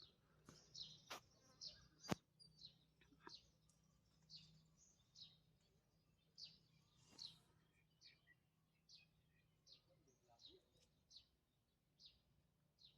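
Faint bird chirps, short high notes repeating about once a second, with one sharp click about two seconds in.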